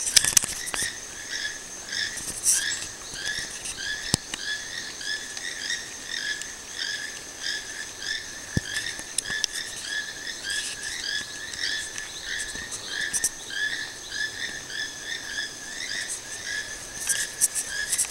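Toucans calling: a long, unbroken run of short, hooked notes, about three a second.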